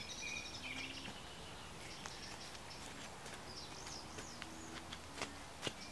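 Birds singing, with a few sharp taps and crunches from a stick mashing the doused, wet fire ashes into the ground; the loudest tap comes near the end.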